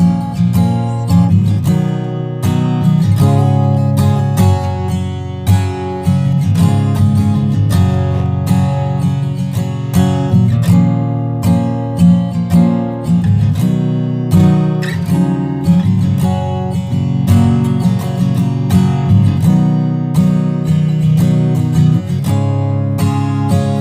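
Custom Taylor acoustic guitar being played, chords strummed and picked in a steady rhythm.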